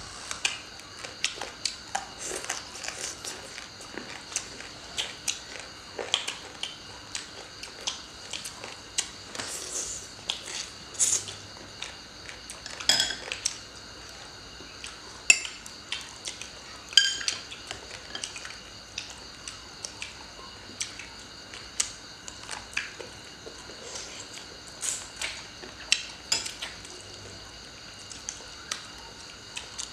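Chopsticks clicking and clinking against a metal serving tray and ceramic plates in irregular taps, the loudest clinks around the middle.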